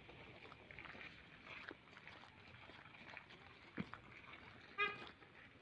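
Footsteps scuffing on a slushy, snow-covered sidewalk over faint street noise. There is a soft knock a little before four seconds in, and just before five seconds a short, high-pitched chirp, the loudest sound.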